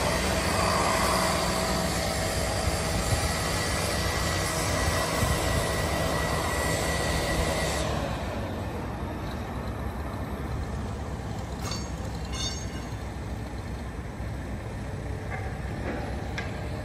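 Road traffic going by, louder for the first half and easing off about eight seconds in.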